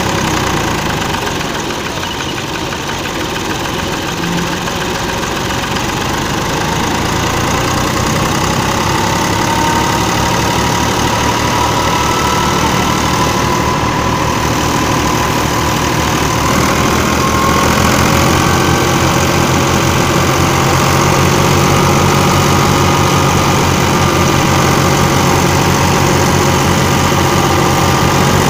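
Al-Ghazi tractor's diesel engine running steadily while it drives a wheat thresher through its PTO shaft. A faint whine rises slowly in pitch through the middle, and the engine note grows louder and fuller about two-thirds of the way in.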